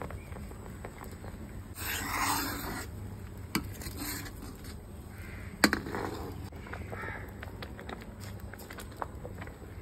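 Crows cawing a few times, harsh calls with the longest about two seconds in, over a low steady hum. Sharp knocks of the stirring spoon against the karahi come in between; the loudest is about halfway through.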